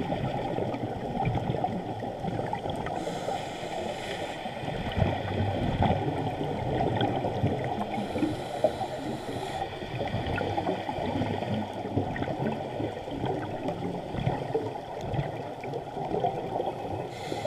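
Muffled underwater noise recorded through a GoPro's waterproof housing on a scuba dive: a steady, dense crackling hiss with the highs cut away.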